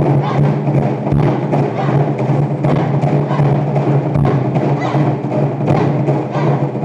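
Taiko drum ensemble playing a fast, dense run of strikes.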